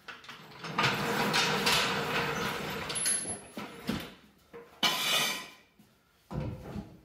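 Steel floor jack rolled out from under a car across a concrete floor, its wheels rumbling and rattling for about three seconds, then a short scrape and a dull thump near the end.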